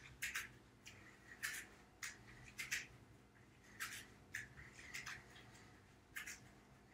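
Faint, brief swishes of sweatshirt fabric rustling as the arms sweep through big circles, about one a second, over quiet room tone.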